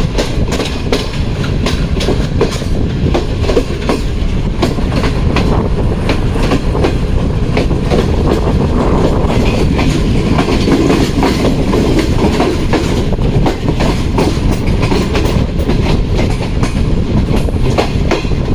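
Tezgam Express passenger coaches running at speed, the wheels clattering over rail joints: a dense run of sharp clicks over a steady loud rumble, heard from on board.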